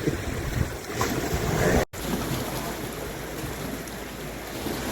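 Waves washing on a rocky shoreline with wind buffeting the microphone, a steady rushing noise that cuts out for an instant about two seconds in.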